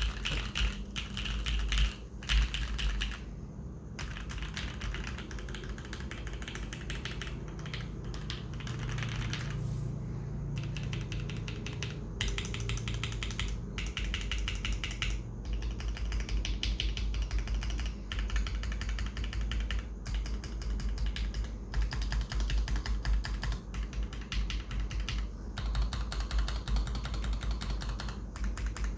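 Typing on a custom mechanical keyboard with an acrylic stacked case, carbon fiber plate, lubed switches and PBT keycaps: a steady, rapid run of keystrokes broken by a few short pauses.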